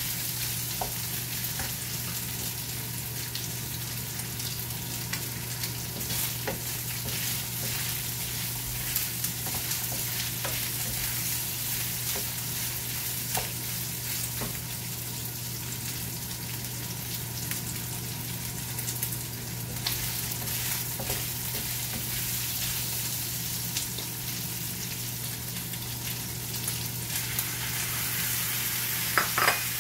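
Sliced meat sizzling in a frying pan while a wooden spatula stirs it, with scattered scrapes and taps against the pan. Near the end kimchi is tipped into the pan and the sizzling gets louder, with a quick cluster of clatters.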